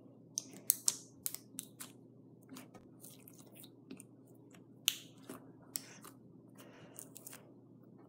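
Clear Liquid Glass thinking putty being squeezed, stretched and pressed between fingers, giving irregular small sticky clicks and snaps, a few sharper than the rest; the putty doesn't really pop.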